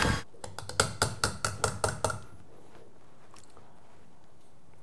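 A stand mixer whipping butter cuts off just after the start, then about ten light, quick metal taps with a short ring over the next two seconds as its wire whisk is knocked against the steel bowl to shake off the whipped butter and bryndza cream. After that, quiet room tone.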